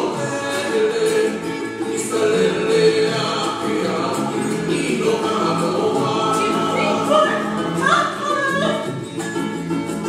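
Background music: a hula-style song with singing voices playing steadily.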